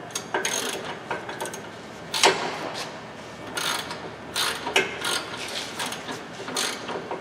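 Hand ratchet clicking in irregular strokes as it tightens a lower control arm mounting bolt.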